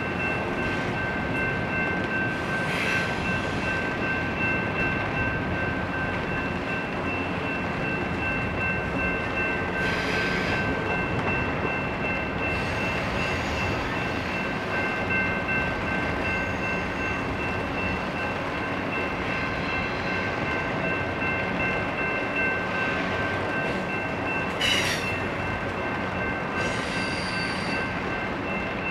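A very slow-moving intermodal freight train rolling by with a steady rumble and a steady high-pitched wheel squeal. Now and then there is a short clank or screech. The loudest comes about 25 seconds in, when the squeal stops.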